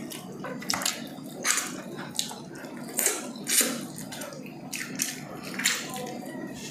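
Wet, smacking eating sounds of saucy pork ribs being chewed and pulled apart by hand: short squelches and lip smacks, irregular, about one a second.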